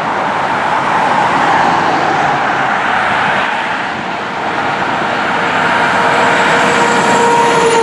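Heavy traffic noise from a busy highway as a responding fire engine (Pierce Arrow XT pumper) approaches. A steady two-note warning tone grows louder over the road noise and dips slightly in pitch near the end as the truck draws level.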